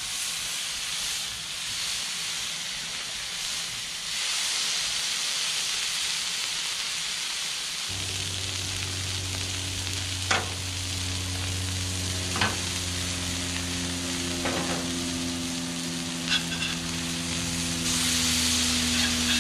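Beef patties sizzling on a hot Blackstone flat-top griddle, with four or five sharp metal clinks of the cast iron press and spatula against the steel top. About 8 seconds in, a steady low hum starts under the sizzle, and the sizzle grows louder near the end as fresh patties are worked on the griddle.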